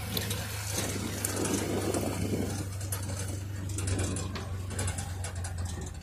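Ranger side-by-side utility vehicle on the move: its engine runs at a steady pitch while the cab and frame rattle and click.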